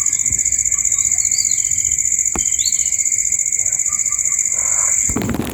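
High-pitched insect trill with a fast, even pulse, steady and loud, with two short bird chirps over it. About five seconds in, it cuts off abruptly into a crackling noise.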